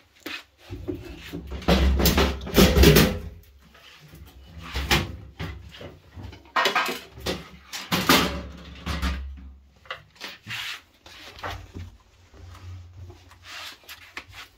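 Hard parts being handled: irregular rubbing, scraping and knocking, loudest about two seconds in and again around eight seconds.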